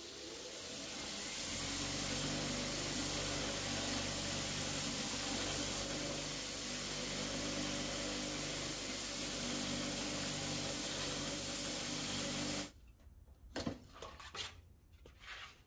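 Bench grinder with a belt sander attachment running with a steady hum and a loud, even hiss as a small steel piece held in pliers is ground on the coarse 40-grit belt. The sound cuts off suddenly near the end, followed by a few short knocks.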